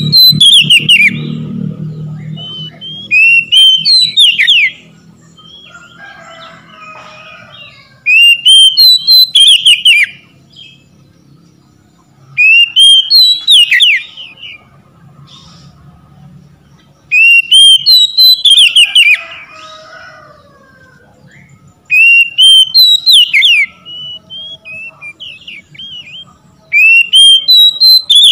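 Oriental magpie-robin (kacer) singing loud whistled phrases of quick rising and falling notes. There are seven phrases, each a second or two long, spaced about every four to five seconds.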